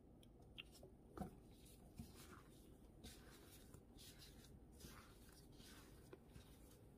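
Faint, soft rustling of plastic-gloved hands working raw shrimp into a plate of cornstarch, with a few light taps, the loudest about a second in.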